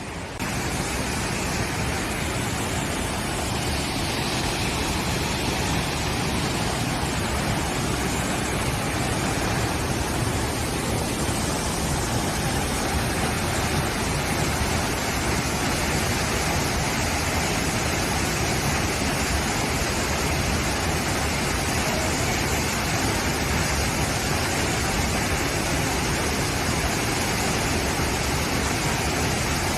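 The steady roar of a waterfall: rushing, falling water with no let-up.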